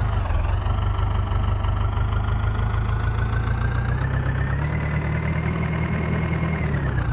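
Diesel engine of a heavy farm or earthmoving machine revving up, its pitch climbing gradually over the first few seconds, holding high for a couple of seconds, then dropping back near the end.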